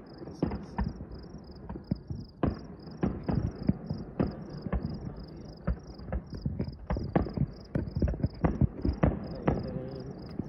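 Distant aerial fireworks booming and popping in an irregular string of reports, a couple or more a second. Crickets chirp steadily underneath, about four chirps a second.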